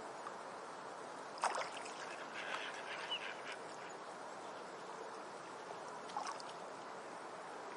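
Steady water noise of ducks on a pond, with a sharp splash about a second and a half in, followed by a few short duck calls and splashes.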